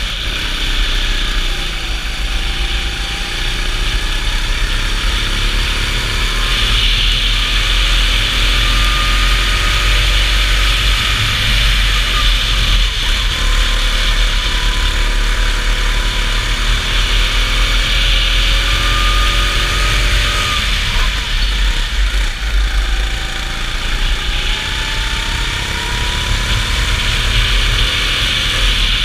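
Go-kart engine at racing speed, its pitch climbing for several seconds as it accelerates and then dropping as it backs off for a corner, a few times over, above a steady low rumble.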